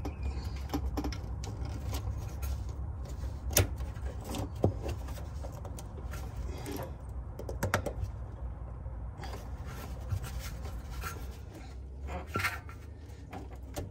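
A fuel line quick-connect fitting being worked loose by hand with a fuel disconnect tool: scattered clicks, rubbing and scraping of plastic and metal, with a few sharper clicks, over a steady low rumble.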